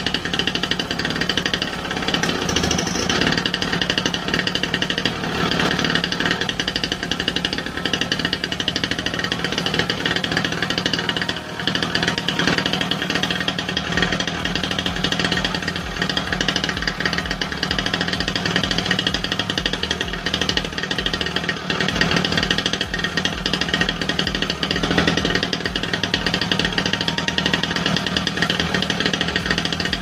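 Small engine of a kids' mini dirt bike running steadily at a constant speed on a test run, after repair for hard starting and surging.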